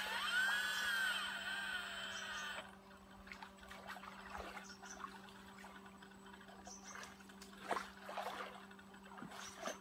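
Hydraulic pump of a radio-controlled model excavator whining, its pitch rising and falling as the arm lowers the bucket, stopping after about two and a half seconds. After that, faint water trickling and splashing around the bucket in the shallow stream, over a low steady hum.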